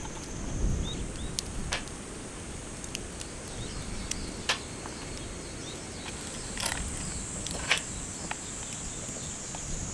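A steady high-pitched insect chorus of summer, with scattered sharp clicks and snaps and a low wind rumble underneath.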